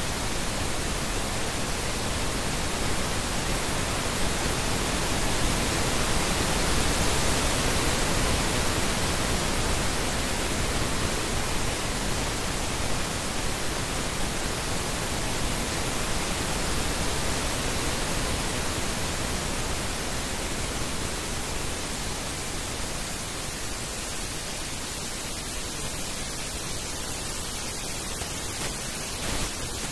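Steady pink noise test signal from a Burosch AVEC audio-video reference test pattern: an even, full-range hiss that eases slightly in level in the last third.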